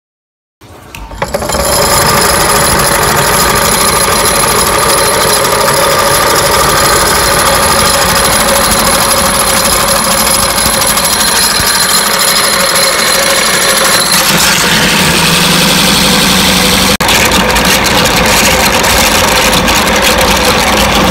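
Motor-driven meat grinder starting up and running with a steady whine. About two thirds of the way through it starts grinding raw meat, and the sound turns rougher with a fast rattle of clicks.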